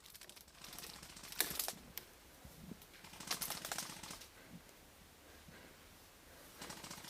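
Airsoft gunfire: four short bursts of rapid ticking, a few seconds apart, with BBs clattering in.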